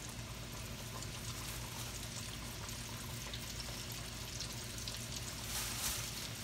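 Hot oil bubbling and sizzling steadily in a steel wok, with a short rustle of a paper bag just before the end.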